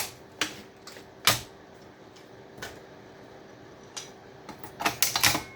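Sharp, separate clicks and snaps of parts being pried and pulled off a power-supply circuit board, with a quick run of clicks near the end. A faint steady hum lies underneath.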